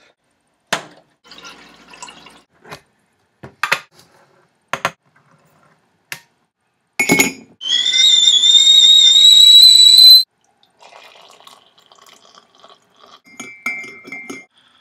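Red enamel whistling kettle handled with its lid, a few sharp clinks and knocks. Then the kettle whistles loudly at the boil for a couple of seconds, one high tone that rises slightly and cuts off suddenly. Near the end a spoon clinks against a ceramic mug as tea is stirred.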